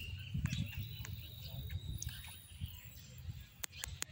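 Outdoor ambience: faint bird chirps and a thin, steady high insect-like tone for about a second and a half in the middle, over a low, uneven rumble on the microphone. A few sharp clicks come near the end.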